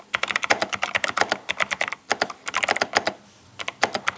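Fast typing on the 8BitDo Retro Mechanical Keyboard N Edition: rapid mechanical key clicks in flurries, with brief pauses about two seconds in and about three seconds in.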